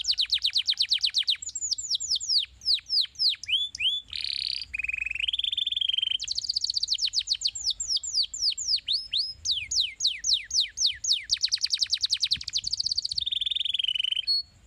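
Domestic canary singing a long, fast song: strings of quick falling whistled notes, about ten a second, broken by a few buzzy rolls, stopping just before the end.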